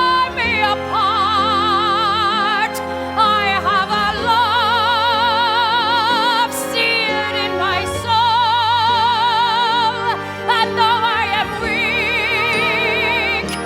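Show-tune singing with long held notes and a wide vibrato, over sustained orchestral accompaniment.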